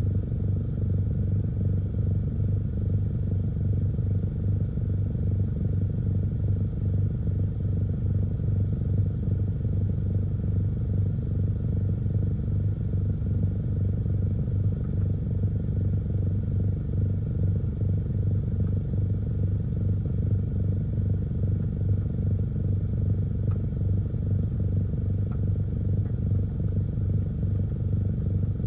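A car's engine idling, heard from inside the parked car's cabin as a steady low hum.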